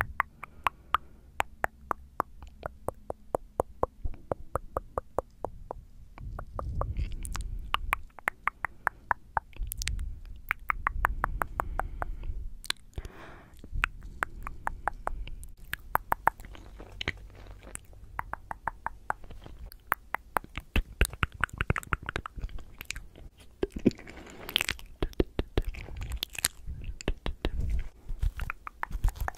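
Tongue clicking close up on a condenser microphone: long runs of quick, sharp clicks, several a second, broken by short pauses and wet mouth sounds.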